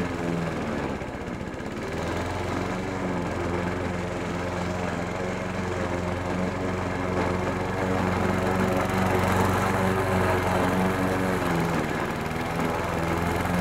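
Riding zero-turn mower's engine running steadily under load as the 72-inch deck cuts grass, with a brief dip about a second in and a little louder from the middle on.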